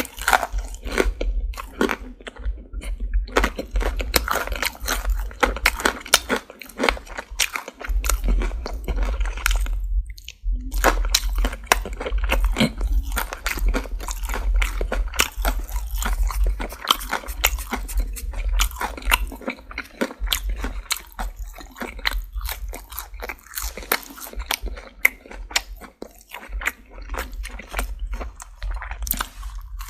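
Close-miked chewing and biting of Popeyes fried chicken, its crispy breading crackling in rapid, dense crunches, with a short pause about ten seconds in.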